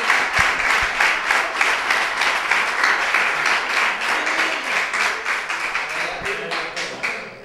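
Audience applauding with dense clapping and some voices mixed in, dying away near the end.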